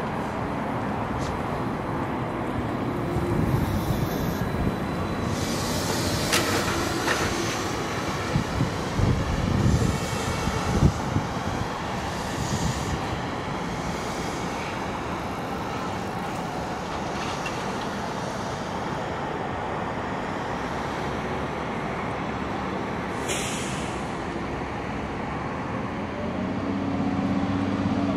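MBTA Neoplan electric trolley buses on the move: tyre and road noise as a bus passes and pulls away, with several clunks and short hisses of air from the brakes. Near the end a steady engine hum grows as another bus comes close.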